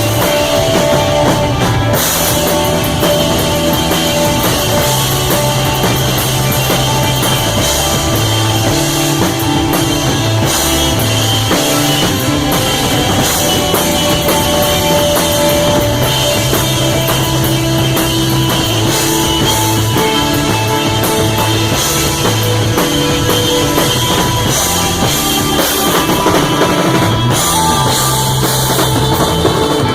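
Live rock band playing loud, steady and unbroken: a drum kit with cymbals, a bass line in long held notes that change about once a second, and electric guitar.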